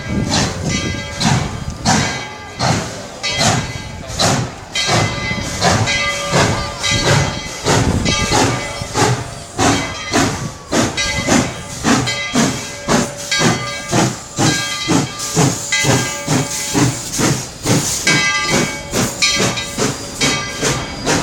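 Tweetsie Railroad No. 12, a narrow-gauge steam locomotive, chuffing as it pulls away from the station, with hissing steam. The exhaust beats speed up steadily as the train gathers speed, from under one a second to about two a second.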